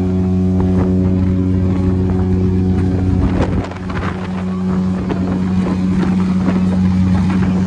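Steady low drone of a cruise ship running under way, heard from its open deck, with wind buffeting the microphone.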